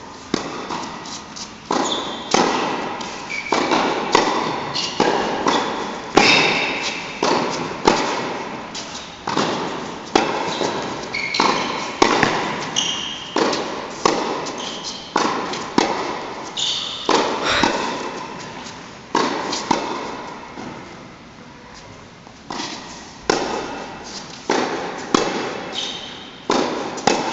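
Tennis rally: sharp pops of racket strings hitting the ball and the ball bouncing on the court, irregular, every half second to a second, echoing in a large indoor hall. Short high squeaks of tennis shoes on the court surface come between hits. There is a lull of a few seconds about twenty seconds in.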